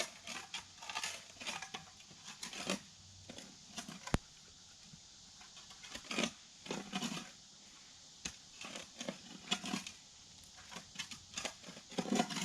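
Spade scraping and scooping loose soil out of a post hole in a run of irregular scrapes, with one sharp click about four seconds in.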